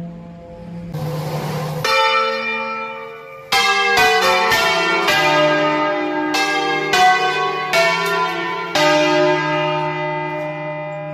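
Church bells of several pitches struck one after another. A first stroke comes about two seconds in, then a quick run of overlapping strokes from about three and a half seconds, each ringing on into the next, before the ringing dies away.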